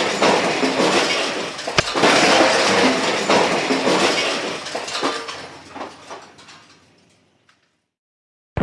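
A loud crash with clattering, clinking debris, hit again about two seconds in, then fading out over several seconds to silence.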